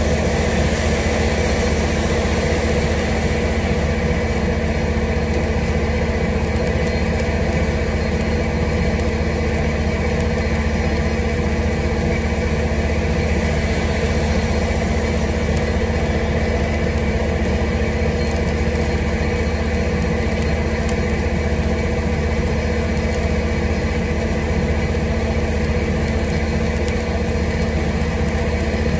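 Heavy rain falling steadily, with a constant low hum beneath it.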